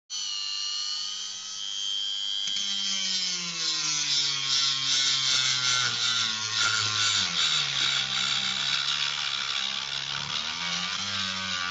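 Rotary tool with a sanding drum running at high speed with a whine, sanding the polymer grip of a Glock 17. Its pitch drops a few seconds in and then wavers as the drum is pressed against the grip and the load changes.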